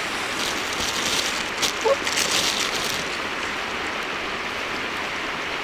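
A swan giving a single short honking call about two seconds in, over a steady rushing noise of water or wind, with crackling in the first three seconds.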